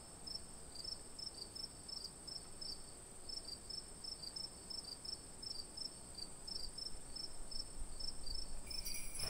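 Crickets chirping: a steady high-pitched trill with short repeated chirps, about three a second.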